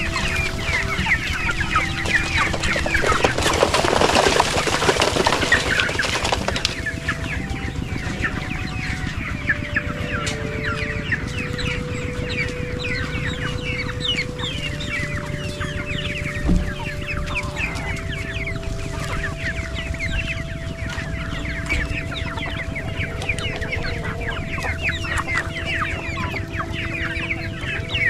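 A flock of free-range chickens clucking and cheeping as they crowd to feed, with many short high calls overlapping all the way through. A rushing noise comes a few seconds in and a single thump about halfway, under faint steady tones that shift pitch now and then.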